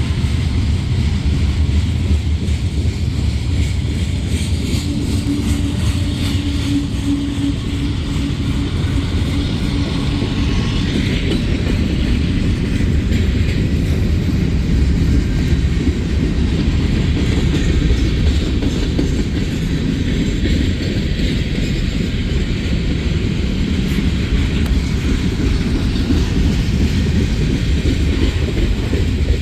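Freight train rolling past at track side, a steady, loud rumble of wheels on the rails.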